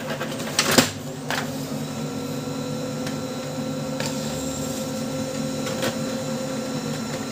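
Brother DCP-L2540DW laser printer running a test print. Its motors hum steadily while a sheet fed from the front is pulled in, with sharp clicks, the loudest under a second in, and more at about one, four and six seconds. The page comes out fully printed, a sign that the reseated gear and cartridge now engage properly and the blank-page fault is cured.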